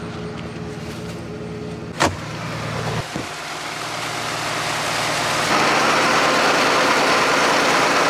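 An engine running steadily, with one sharp click about two seconds in, after which a rushing noise grows louder and then holds.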